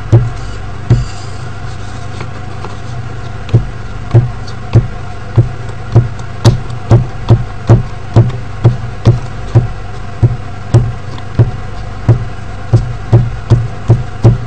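Glue stick rubbed back and forth over a paper strip on a wooden table, each stroke knocking softly, about two a second from a few seconds in. A steady low hum runs underneath.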